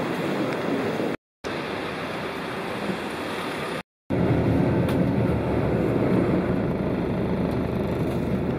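Steady background noise cut off abruptly twice by short silent gaps, about one second in and about four seconds in. After the second gap comes the steady low rumble of a road vehicle driving, heard from on board.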